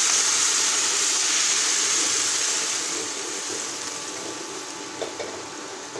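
Sizzling hiss of boiled vegetables and their cooking water hitting hot oil and spice masala in a kadai. The hiss slowly dies down over the second half.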